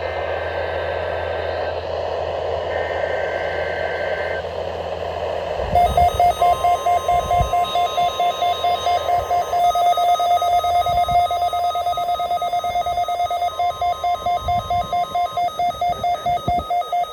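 Weather-radio broadcast with static and faint steady data tones, then from about six seconds in a loud electronic alert beeping rapidly, about four beeps a second, with a steady tone under it in places.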